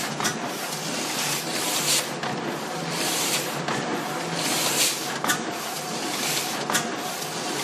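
Sheet-fed printing press running: a steady mechanical clatter with sharp clacks every second or two and surges of hiss.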